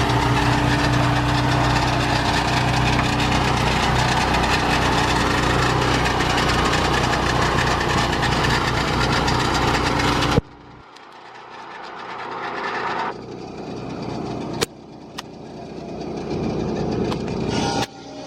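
Lucas portable sawmill's engine running steadily, cutting off abruptly about ten seconds in. A much quieter stretch follows, with a few sharp clicks.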